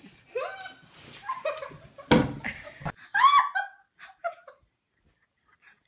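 Laughter and giggling from people watching a toddler play on a large dog, with a loud short burst about two seconds in and a high-pitched squeal a little after three seconds; the sound then drops to near silence.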